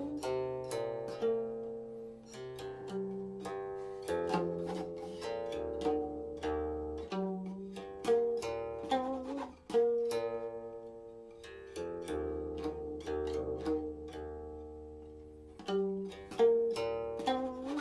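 Silk-string guqin being played solo: a run of plucked notes that ring and die away, some of them sliding in pitch.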